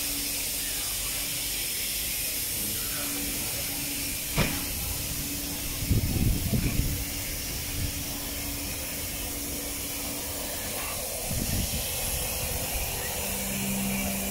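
Steady air hiss from a historic electric train standing at the platform, with a faint steady hum beneath it. A sharp click comes about four seconds in, and a few low thuds come later.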